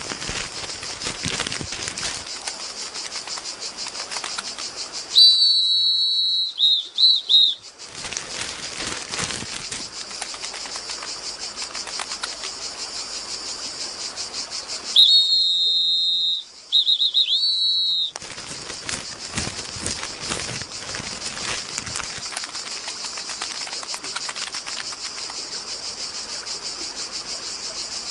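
Animated-film soundtrack: a steady, high chirring background of rapid fine ticking, broken twice by loud spells of high, warbling whistles lasting two to three seconds each, about five and fifteen seconds in.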